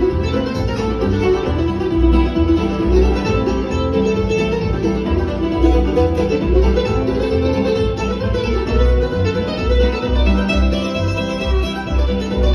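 Acoustic string band playing a bluegrass-style folk tune: a bowed fiddle, guitar and mandolin over an upright bass plucking a steady beat.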